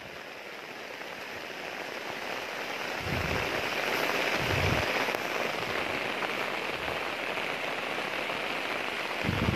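Steady heavy rain falling on leaves and grass, swelling over the first few seconds and then holding even. A few short low thumps come through it about three and four and a half seconds in, and again near the end.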